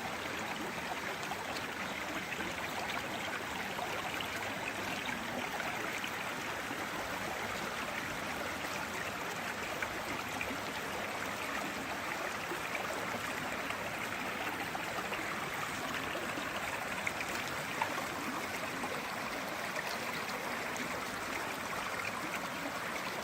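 Stream water flowing steadily, a continuous even rushing, with a couple of faint clicks.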